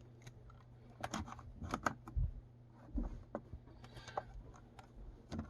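Scattered small clicks and taps from a Fuji TW-300 compact 35mm film camera being handled, its buttons and parts clicking under the fingers, with a cluster of clicks one to two seconds in.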